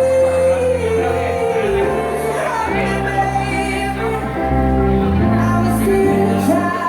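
Music with singing: a held, wavering vocal line over sustained bass notes and chords that change about every second.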